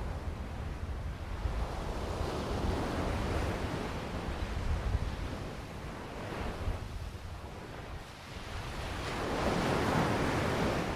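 Ocean surf: waves breaking and washing in, the sound swelling and easing in two big surges, with wind rumbling on the microphone underneath.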